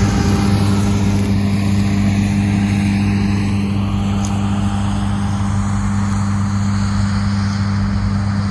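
Combine harvester running steadily under load while cutting oilseed rape: an even, continuous machine drone with a strong low hum.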